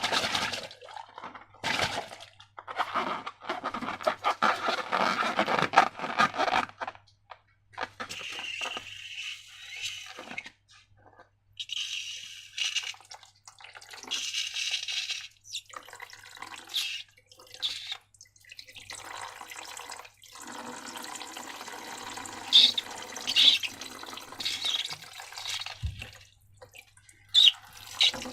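Slime and thick liquid glue being squeezed from transparent balloons, poured and worked by hand, with wet squelching, pouring and dripping sounds in irregular bursts.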